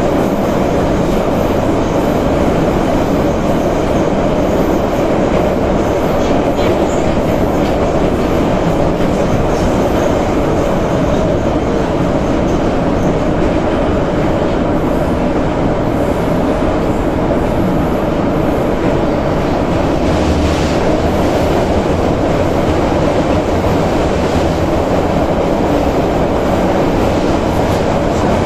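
81-717.5/714.5 metro train running through a tunnel, heard from the end of a car beside the gap to the next car: a loud, steady rush of wheels on rail with a constant running hum. A short, heavier low rumble comes about 20 seconds in.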